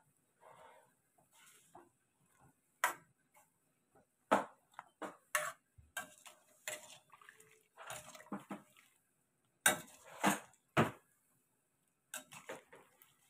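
Metal spatula scraping and knocking against a frying pan while stir-frying cauliflower and shrimp: irregular clinks and scrapes, with the sharpest knocks about four to five seconds in and again around ten seconds.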